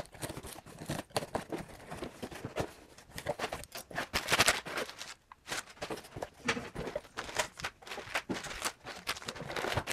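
Cardboard shipping box being cut open with a knife: scraping strokes through the packing tape, with cardboard rustling and small knocks, the longest stroke about four seconds in.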